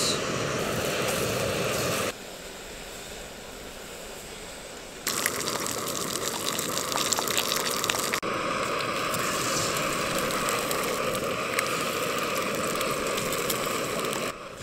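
Bacon and eggs frying in a pan over a camping stove: steady sizzling with fine crackles. The sizzle drops quieter about two seconds in and comes back louder about five seconds in.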